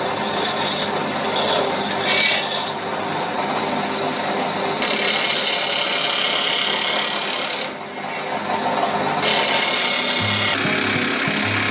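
Drill press spinning an abrasive sanding disc against a steel knife blade: a steady rasping grind whose tone shifts as the blade is pressed and moved along the disc, easing off briefly about eight seconds in.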